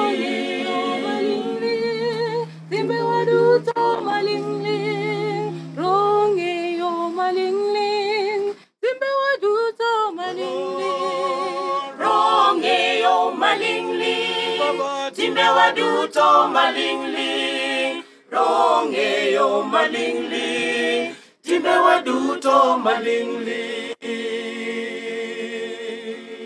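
Church choir of men and women singing a hymn in Dholuo a cappella, with vibrato on the held notes and brief breaks between phrases.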